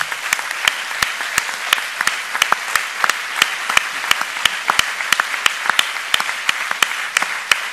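Hall audience applauding, the clapping falling into a steady beat of about three claps a second.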